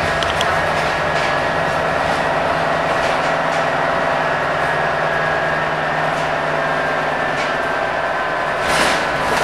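Scania K230UB bus heard from inside the saloon, running at a steady speed: engine and drivetrain noise with a steady whine over road noise. A brief, louder rattle or bump comes a little before the end.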